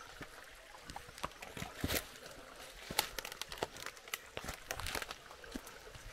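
Footsteps on a bush track, irregular crunches and taps, over the faint steady sound of a creek.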